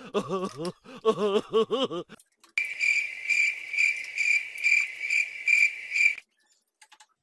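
A woman's voice making short, wavering rising-and-falling sounds for about two seconds. Then a cricket chirps in a steady rhythm, about three chirps a second, and stops suddenly about a second before the end.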